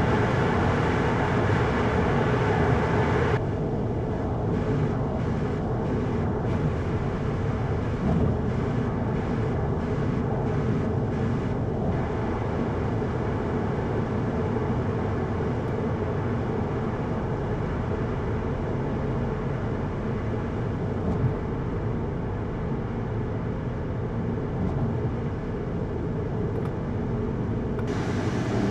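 Interior driving noise of a Volkswagen Golf GTI mk7.5 on the move: a steady road and tyre rumble with the engine under it. The higher hiss drops off abruptly a few seconds in and comes back near the end.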